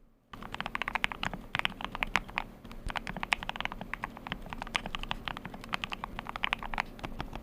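Custom-built 'thocc' mechanical keyboard being typed on fast: a dense, uneven run of keystroke clacks that starts about a third of a second in.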